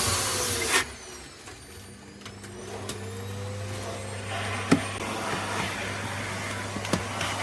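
Vacuum cleaner motor cutting out about a second in, its whine falling as it spins down. It then spins back up with a rising whine, and the steady rush of suction returns at a lower level, with a sharp click just after.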